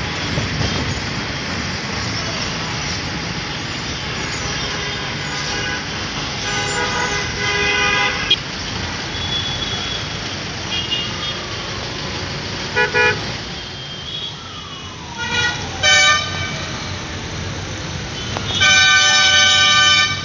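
Busy road traffic with vehicle horns honking repeatedly: a horn blast about a third of the way in, short beeps around the middle, two quick toots later, and a long, loud horn blast near the end, over steady traffic noise.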